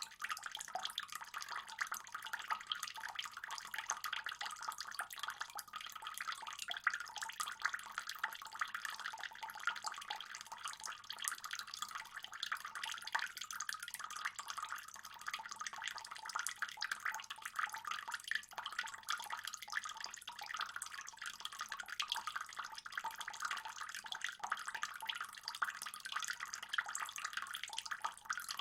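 Pond water trickling and splashing steadily, a dense patter of small drops with no pauses.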